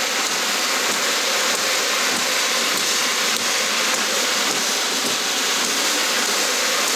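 Drum carder being turned with a brush tool held against the alpaca fiber on its toothed drum, slicking the fiber down: a steady, even hiss with no pauses.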